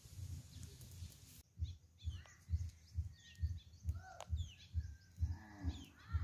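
Outdoor ambience: small birds chirping in short falling notes over a steady run of low thumps, about two a second. A sharp click comes just past the middle, and a short animal call near the end.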